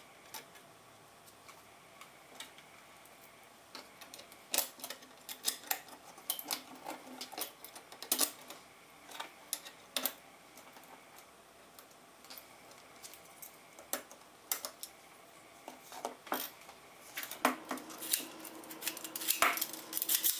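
Stainless steel tong parts clicking and clinking together as they are handled and fitted at the pivot joints, in scattered bursts of small metal taps. Near the end a denser run of clanks with a brief metallic ring as the jointed arms are moved.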